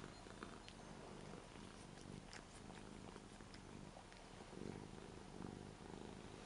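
Ragdoll cat purring steadily and faintly while being stroked under the chin.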